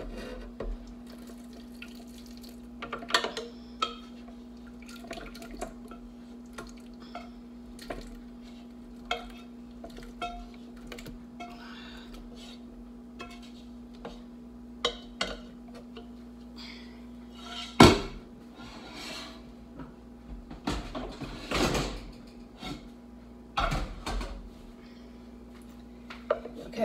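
Kitchen utensils clinking, knocking and scraping against a pot and a Ninja blender jar as cooked apples are spooned into the jar, in scattered irregular strokes; the loudest is a sharp knock about 18 seconds in. A steady low hum runs beneath.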